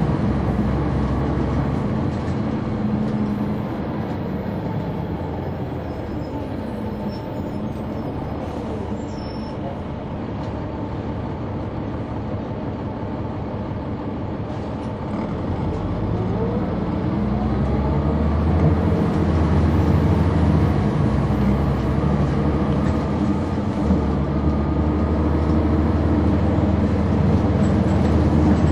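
Caterpillar C9 ACERT diesel engine of a Neoplan AN459 articulated bus, heard from on board. It runs quieter through the first half, then pulls hard from about halfway with a rising whine, with a brief dip about three-quarters through before it carries on loud.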